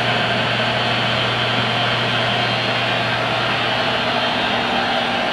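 Monarch 10EE toolroom lathe running steadily: a constant electric hum with an even mechanical whir that does not change.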